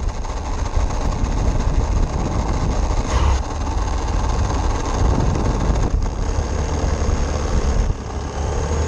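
Radio-controlled car driving, a steady loud rumbling noise with a heavy deep low end.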